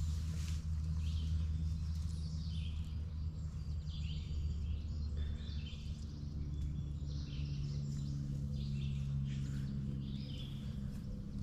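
Songbirds calling in short, scattered chirpy phrases over a steady low hum.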